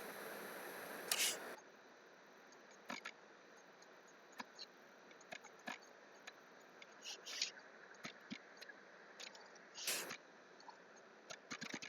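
Faint, scattered clicks of a computer mouse and keyboard, with a brief soft rustle at the start and another about ten seconds in, and a quick run of clicks near the end.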